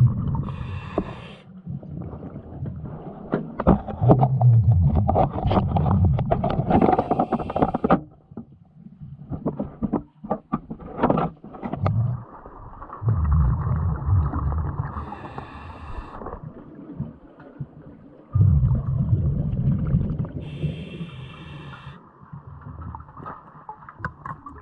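Scuba diver breathing underwater through a regulator: a hissing inhale every few seconds and long bursts of rumbling exhaled bubbles, over several breath cycles. A short run of clicks and scrapes comes about ten seconds in.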